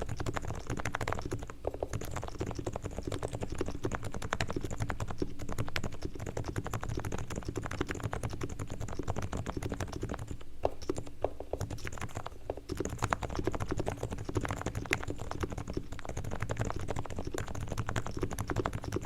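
Fast, continuous typing on a Realforce R3 silent-model keyboard with 45 g Topre switches: a dense, irregular patter of soft keystrokes.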